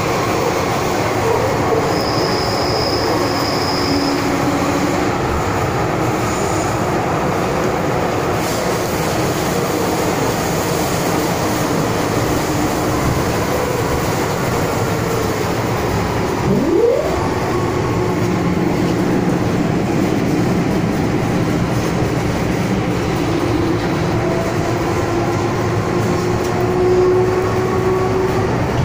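Hong Kong MTR M-Train (Metro Cammell electric multiple unit) running, heard from inside the carriage: a steady rumble and rattle of wheels on rail with faint whining tones over it. A short rising whine comes about seventeen seconds in, and a high thin tone sounds for about two seconds about two seconds in.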